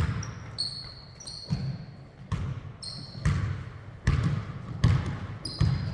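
A basketball being dribbled on a hardwood gym floor, thudding about every three-quarters of a second, with several short, high sneaker squeaks on the floor in between.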